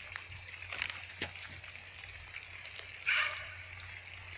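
An animal call, once, about three seconds in, over scattered faint clicks and a low steady hum.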